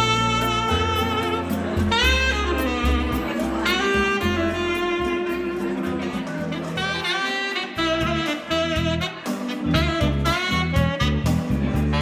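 Saxophone playing a jazzy melody with bends and slides over a backing track with a bass line; drum strokes come in about halfway through.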